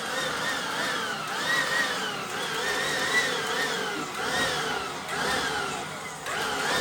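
Leaf blower running, its motor whine swelling and dropping in pitch over and over, about once every half to one second.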